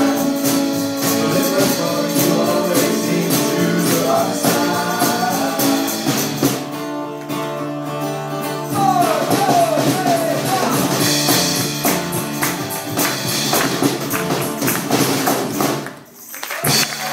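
A live band playing a song with singing over a steady beat, breaking off about a second before the end.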